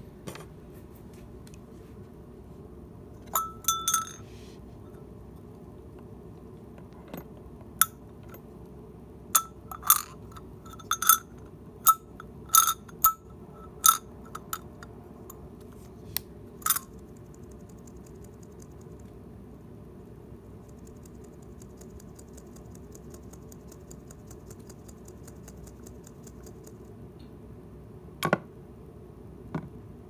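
Copper cowbell-style bear bell shaken by hand, its clapper striking in short, bright clanks: a couple about three seconds in, a run of irregular strikes over the next dozen seconds, then one more near the end.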